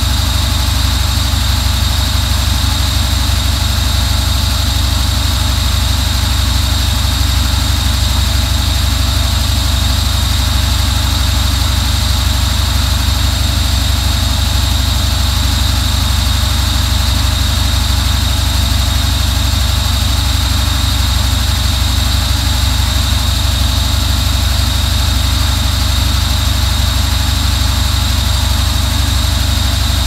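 Washing machine running with a steady low hum and a constant high-pitched whine, unchanging throughout.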